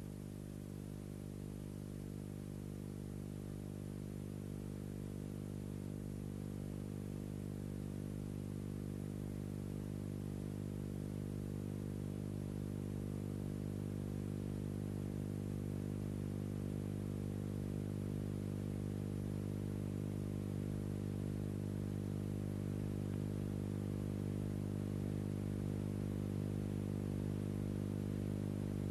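Steady low electrical hum with a stack of even overtones and light hiss, unchanging in pitch and slowly growing a little louder.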